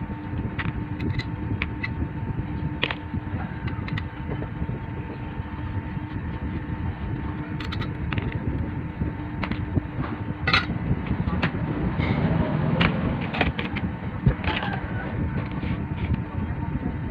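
Steady low background rumble with a faint constant hum, under scattered light clicks and taps, busiest in the second half, as of small parts and tools being handled at a workbench.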